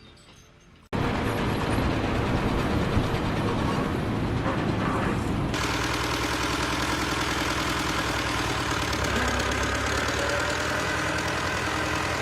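A steady engine-like machine noise that cuts in suddenly about a second in and runs on with a low hum; about halfway through it turns brighter and hissier.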